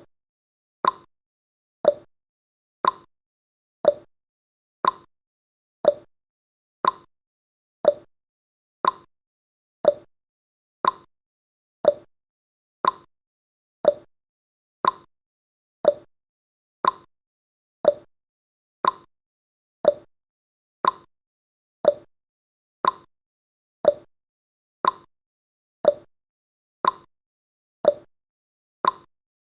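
Countdown timer sound effect: a short, sharp click once a second, evenly timed, marking off each second of the countdown.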